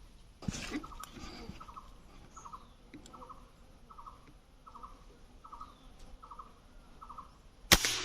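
A bird calling in a regular series of short, repeated notes, one about every three-quarters of a second, after a brief rustle. Near the end comes a single sharp, loud crack of a shot.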